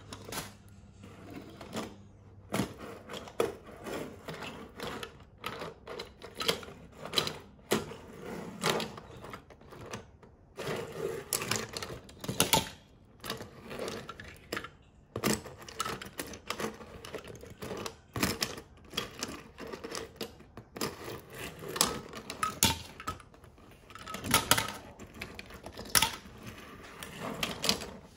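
Diecast metal toy cars clicking and clacking against one another and rolling on a wooden tabletop, in an irregular run of small sharp clatters.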